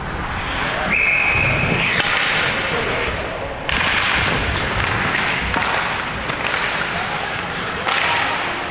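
Ice hockey game on a rink: a single steady whistle blast lasting about a second starts about a second in. After it come noisy scraping and knocks on the ice, with sudden loud surges about halfway through and near the end.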